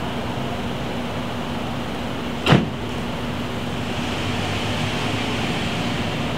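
Steady outdoor ambience: a constant hiss with a low, even hum, like building ventilation or distant traffic, broken by a single sharp click about two and a half seconds in.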